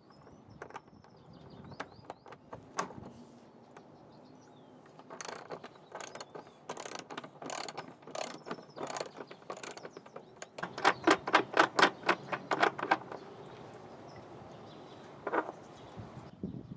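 Ratchet wrench clicking as a 9/16-inch socket loosens the threaded rod of a pool filter's tank clamp. It clicks in short runs, then in a fast, louder run of about five clicks a second near the end.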